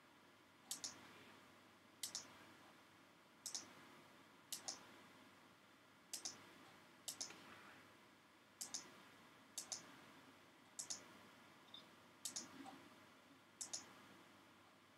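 Computer mouse clicking about a dozen times, roughly one short, sharp click a second at uneven spacing, some of them double clicks, over faint room noise.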